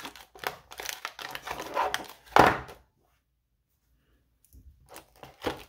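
Cardboard backing being torn away from the plastic blister pack of a die-cast toy car, crinkling and crackling, with the loudest rip about two and a half seconds in. After a gap, faint crinkling resumes near the end.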